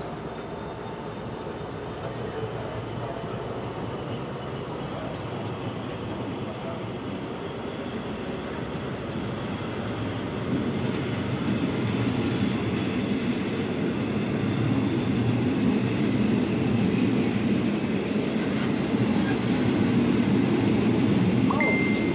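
Thai local train's passenger coaches rolling past at the platform, the running noise of wheels on rail growing steadily louder. A brief high squeal comes near the end.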